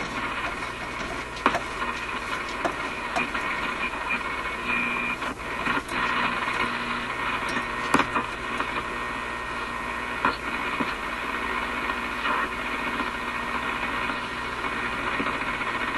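Static hiss and crackle from the RCA A25 vacuum-tube radio's speaker as the tuning dial is swept up toward the top of the AM broadcast band, between stations, with scattered clicks and a brief whistle about five seconds in.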